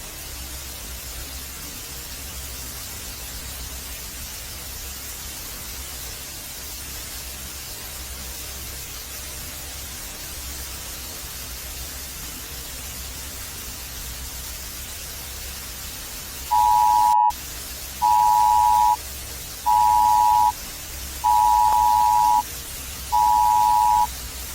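Steady hiss with a low hum, then, about two-thirds of the way through, an electronic beep of two close tones that sounds five times, each about a second long and roughly 1.7 seconds apart.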